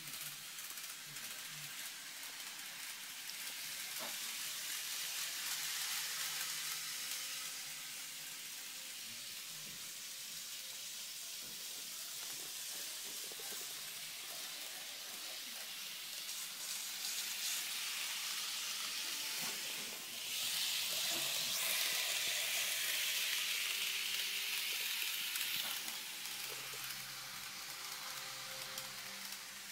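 KATO N gauge Yokosuka-line model train running on its track: a soft, steady hissing whir of its wheels and small motor, louder for several seconds about two-thirds of the way through.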